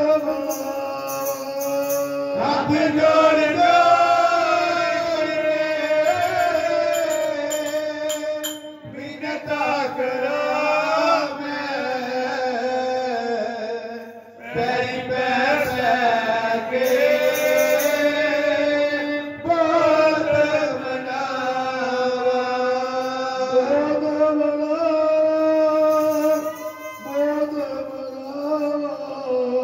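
Men singing Sikh devotional kirtan into microphones in long, drawn-out phrases with short breaks between them, accompanied by chimtas and a dholak.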